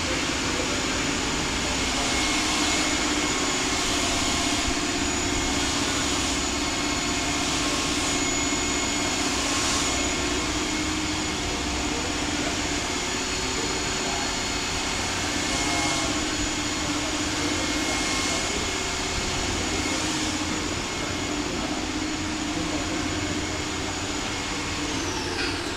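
Steady mechanical running noise with several constant whining tones, holding one level throughout; the highest tone drops away and stops near the end.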